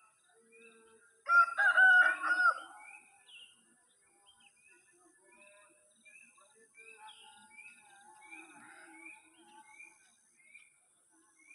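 A rooster crowing once, loud, about a second in and lasting about a second and a half, while a small bird keeps repeating a short chirp about twice a second with a faint high steady hiss behind it.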